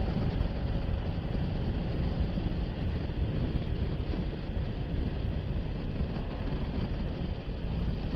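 Steady wind rush over a motorcycle helmet and its intercom microphone at high highway speed, with the road and engine noise of the riding bike underneath. The microphone is shielded by a neck skirt on the helmet and a chin wind deflector.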